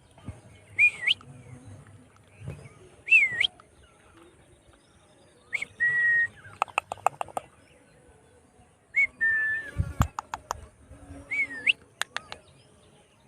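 Indian ringneck parrot whistling: about five short whistles, each flicking up and then down, two of them held as a steady note for about half a second. Two quick runs of sharp clicks come in between, one in the middle and one later.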